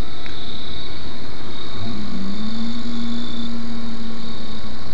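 A loud, steady nighttime hiss of frogs and insects in the woods. About two seconds in, a low tone begins, dips briefly, then holds steady for roughly three seconds before fading.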